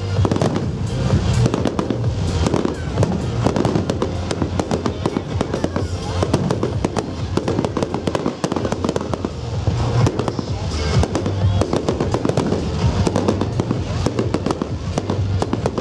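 Firework display: a dense, rapid series of bangs and crackles from bursting fireworks, over loud music with a pulsing bass beat.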